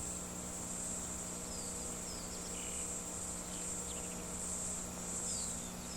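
Insects trilling, a steady high-pitched buzz that swells and fades about once a second, with a few faint short high chirps and a low steady hum underneath.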